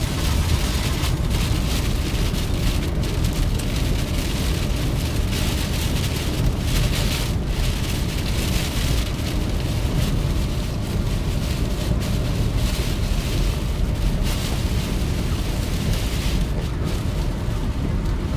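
Rain on a car's windscreen and the hiss of tyres on the wet road, over a steady low rumble, heard inside the moving car's cabin.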